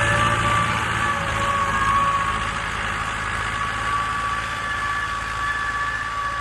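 YuMZ tractor's diesel engine running steadily under load while ploughing, with a steady high whine over the low engine hum.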